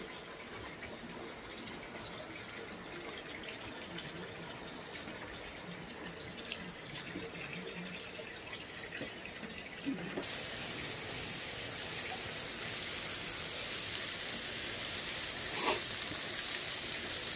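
Pork intestines (makchang) sizzling on a hot iron griddle. The sizzle comes in suddenly and louder about ten seconds in, with a few sharp pops; before that only a faint steady hiss is heard.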